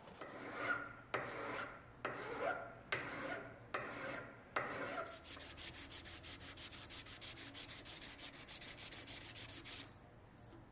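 A flat metal file rasping across a bronze screw head set in a bronze rudder pintle, six slow strokes, trimming the head flush. About halfway through it changes to rapid back-and-forth strokes of abrasive cloth pulled shoe-shine fashion over the fitting, about eight a second, stopping shortly before the end.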